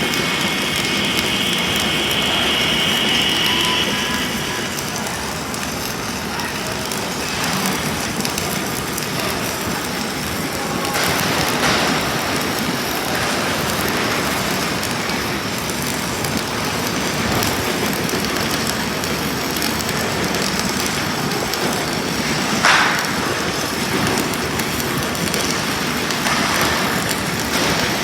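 Self-shielded flux-cored arc welding with 5/64-inch Lincoln Innershield NR305 wire: the arc gives a steady crackling, frying hiss, with a few sharper pops.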